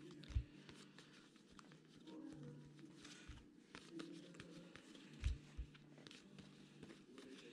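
Faint handling of 2020 Topps Series 1 baseball trading cards: light flicks and slides as cards are leafed through a freshly opened pack, with a few soft low thumps.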